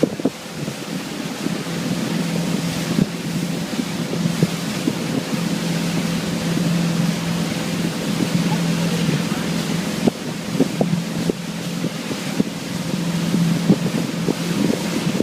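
Motorboat engine running at a steady drone, with wind buffeting the microphone and water rushing past, and occasional short knocks.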